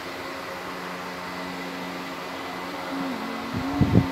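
Electric fan running with a steady hum of two low tones over a faint whoosh, with a few low bumps near the end.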